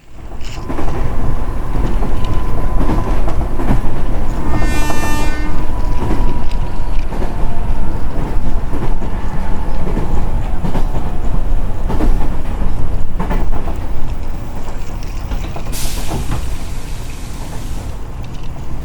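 A train running with a continuous rattling rumble, its horn sounding once for about a second around five seconds in, and a burst of hiss near the end.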